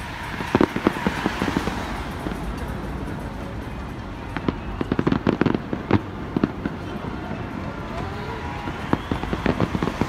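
Fireworks display bursting in rapid clusters of bangs and crackles: a first volley about half a second in, a longer, denser one around the middle, and another near the end. A steady hum of street noise runs underneath.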